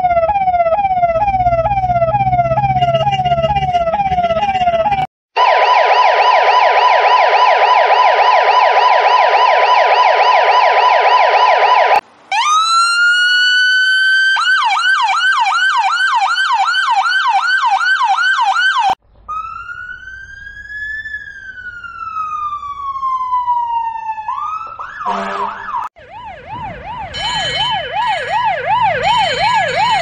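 A run of old-style American emergency-vehicle sirens, cut one after another: police, then fire engine, then ambulance. It opens with a repeating yelp over engine rumble, then a much faster warble. About twelve seconds in, a siren winds up in pitch and breaks into a fast yelp; later a slow wail rises and falls, and near the end comes another fast yelp.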